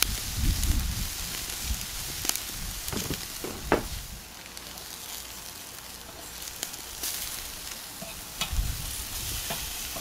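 Marinated chicken breasts sizzling on a hot charcoal grill, a steady hiss, with a few sharp clicks of metal tongs against the grate as pieces are moved and turned.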